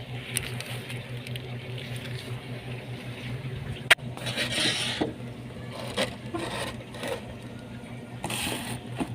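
Scraping and rubbing handling sounds in short bursts, with one sharp click about four seconds in, over a steady low hum.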